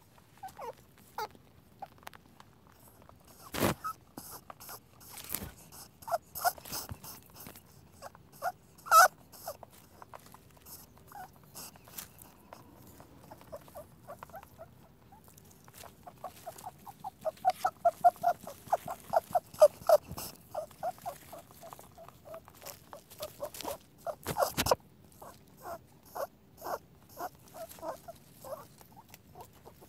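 Rabbit squeaking: short, sharp squeaks and clicks in irregular clusters, with a fast run of squeaks about two thirds of the way in.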